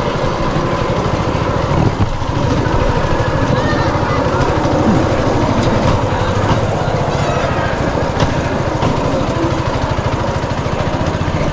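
Small engine of a motorized rail trolley running steadily as the trolley travels along the tracks, with a few faint clicks.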